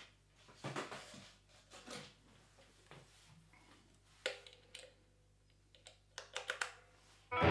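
Scattered light clicks and knocks from an electric guitar being picked up and readied, then the electric guitar comes in loud right at the end.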